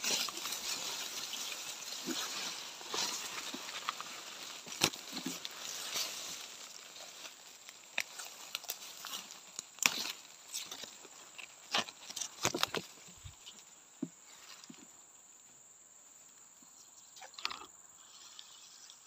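Grass blades and leafy stalks rustling and snapping as someone pushes through dense riverbank vegetation, with many sharp clicks and crackles. The rustling dies away a little over halfway through, leaving a faint, steady, high insect drone.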